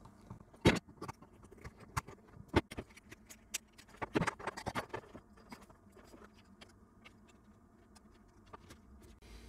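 Small, sharp clicks and taps of a thin metal hand tool and pliers against a small metal modulator box as wires are worked through its hole and the little circuit board is handled. A cluster of clicks comes about four seconds in, and the handling grows sparse and faint in the second half.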